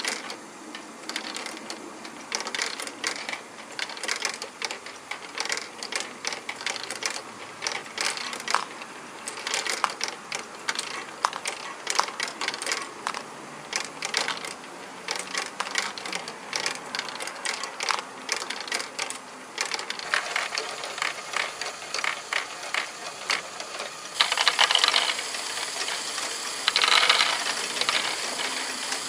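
LEGO Great Ball Contraption module running: small plastic balls rolling and dropping along plastic ramps and girders in a stream of irregular clicks and rattles, over the steady clatter of the module's gears. Twice near the end, louder stretches of rattling as balls pile up and jostle in the collecting track.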